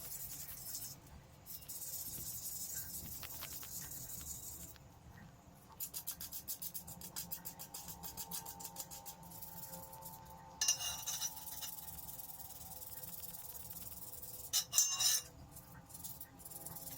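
Sandpaper rubbed back and forth by hand on a bike frame, a dry scratchy rasp that comes in runs of quick strokes, with two louder scratchy bursts in the second half.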